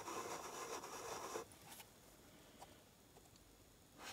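A steady mechanical whirr cuts off about a second and a half in, leaving near quiet with a few faint clicks.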